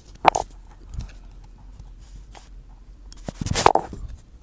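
Close handling noises from hands and a small tool working the float hinge pin of a carburetor: a sharp scrape about a third of a second in, a couple of light clicks, then a longer, louder rubbing scrape near the end.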